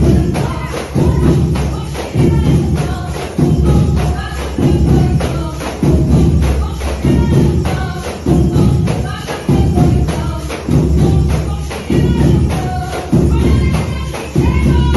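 Tambourines struck in rhythm by a percussion band, playing along to a song with singing and a heavy low beat about once a second.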